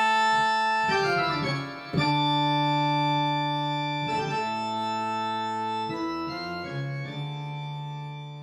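Keyboard music: slow, organ-like held chords that change every second or two and slowly fade.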